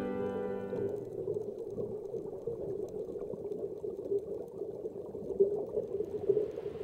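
Muffled, bubbling underwater noise heard through a submerged camera, with a soft hiss rising near the end. The tail of a piano chord fades out in the first second.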